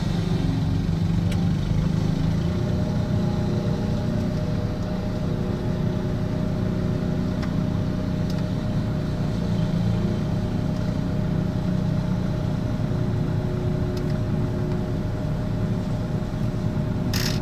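An engine running steadily with a low, even drone, with a brief sharp click near the end.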